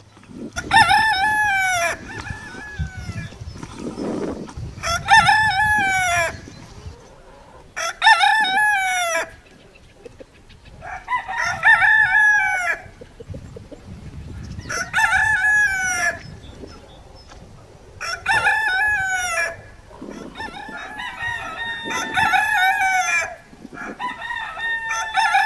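Pavlovskaya rooster crowing over and over, about eight long crows in all, one every three seconds or so.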